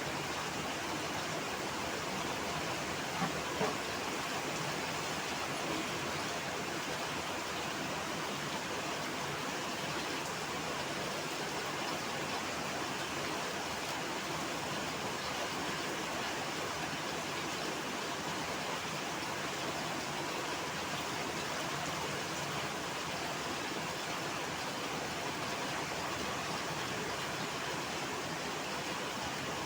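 Heavy rain falling steadily as an even hiss, with two faint clicks about three seconds in.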